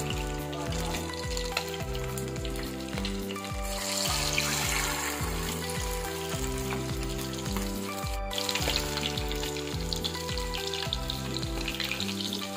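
Marinated whole quails sizzling as they fry in hot oil, the sizzle swelling about four seconds in and again after about eight seconds, over background music. A single sharp click just past eight seconds.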